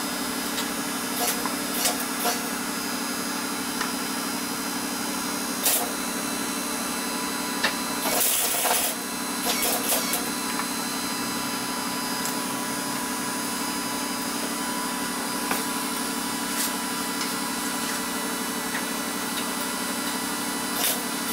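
MIG welder laying short tack welds on the Civic's steel radiator core support: several brief bursts of arc noise and a longer one of about a second around eight seconds in, over a steady hum.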